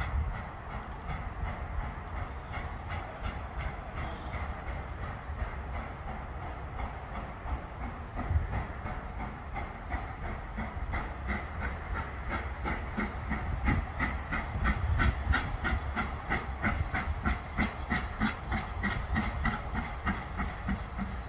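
Fairburn 2-6-4 tank steam locomotive working towards the listener, its exhaust beating in an even rhythm over a constant hiss of steam. The beats grow louder and plainer from about halfway through as the engine draws nearer.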